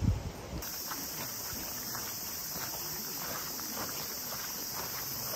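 Cicadas droning steadily in summer trees, coming in suddenly about half a second in after a moment of wind on the microphone, with faint footsteps.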